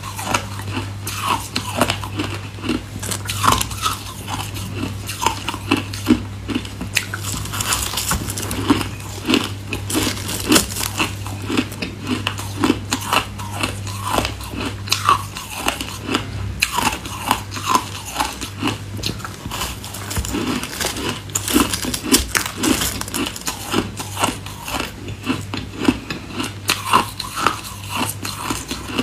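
A person biting and chewing crumbly white ice close to the microphone: a dense, steady run of crisp crunches throughout.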